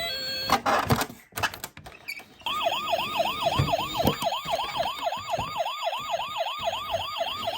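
Toy ambulance's electronic siren sounding in a fast yelp, about three to four sweeps a second, starting about two and a half seconds in. A few knocks and clatters come about half a second in, before the siren starts.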